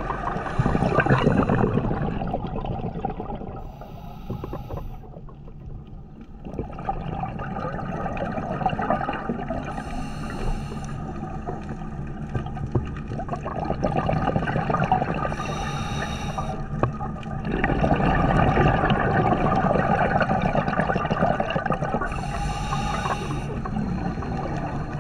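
Underwater ambience on a diver's camera: a steady rush of water noise, with bursts of scuba exhaust bubbles about every six seconds.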